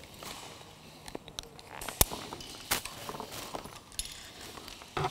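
Metal rope-access hardware clinking and clicking on a climbing harness as carabiners and devices are unclipped and stowed. A few separate sharp clicks, the loudest about two seconds in.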